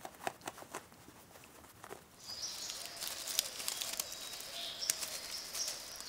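Light rustling and clicking of a squirrel monkey moving on bark and twigs. About two seconds in, rainforest ambience takes over: a steady high insect buzz with bird chirps.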